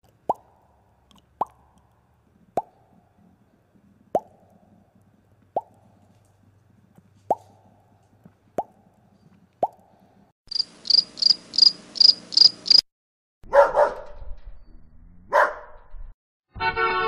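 A string of separate sound effects: eight sharp water-drop plops about a second apart, then a cricket chirping six times in a steady rhythm, then a dog barking twice. Shortly before the end a steady tone with many overtones begins.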